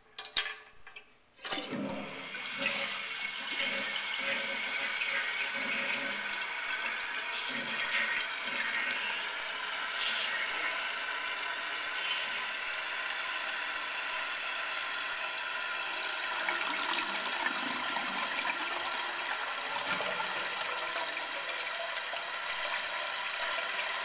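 A few short clicks, then about a second and a half in, the 1974 Kohler Cayuga toilet flushes: a steady rush of water from the open tank that keeps going. The flush is slow, and the tank barely empties.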